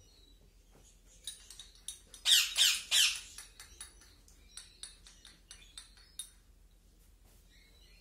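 Cockatiel chicks squawking for food, with three loud, harsh calls about two seconds in. Around them, a run of quick clicks from a metal spoon stirring hand-feeding formula in a small ceramic cup.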